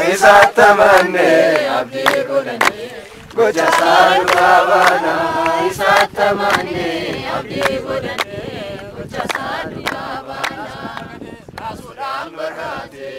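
A group of voices singing a church hymn together, with hand claps.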